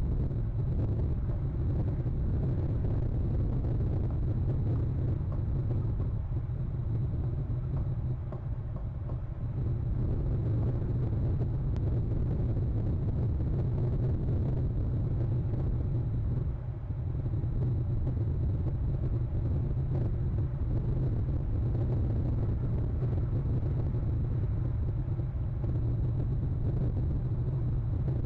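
Steady low outdoor rumble picked up by the nest camera's microphone, dipping briefly about 9 and 17 seconds in; no eagle calls are heard.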